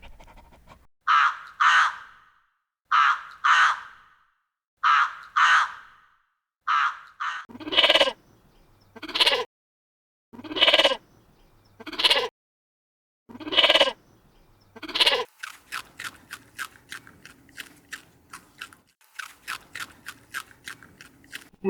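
Sheep bleating: first high, short calls in pairs, then a series of fuller, lower bleats about one and a half seconds apart. From about two-thirds of the way in comes a fast run of short, evenly repeated calls.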